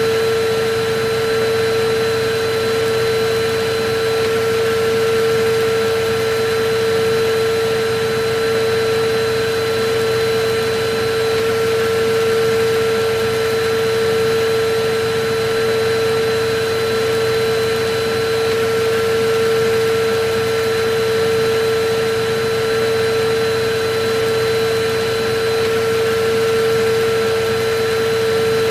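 Electric vacuum cleaner running continuously, a steady motor tone over an even rush of air with no change in speed.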